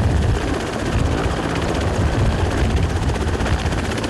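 Military helicopter running at close range, its main rotor beating fast and steadily over the engine noise.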